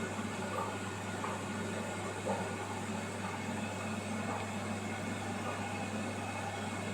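Aquarium filter running: a steady low hum with an even hiss of moving water.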